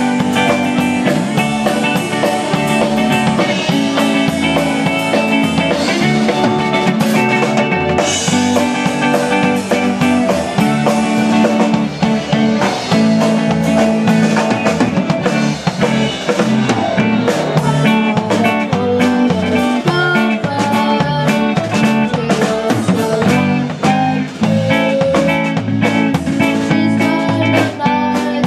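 Live band playing an upbeat song: electric guitar, electric bass and a drum kit, with a steady beat.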